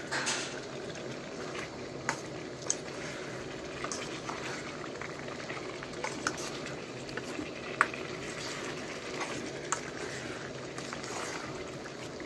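Chicken pieces frying and bubbling in masala gravy in a steel kadhai, a steady sizzle, with a steel spatula clinking and scraping against the pan now and then as it is stirred.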